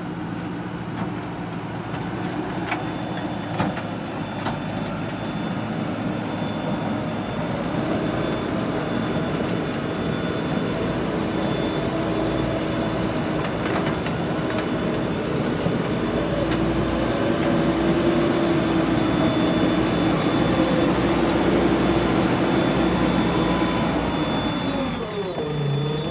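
JCB backhoe loader's diesel engine working under load as its front bucket pushes and scoops soil, growing louder and a little higher through the middle, then dropping briefly near the end. A few sharp knocks sound in the first seconds.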